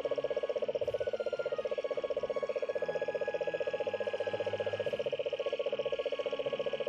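A frog calling in one long, rapid pulsed trill.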